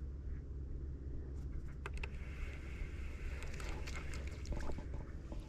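Light water splashes and small knocks around a fishing kayak over a steady low rumble, with a cluster of clicks and splashing from about two seconds in that is busiest near the end.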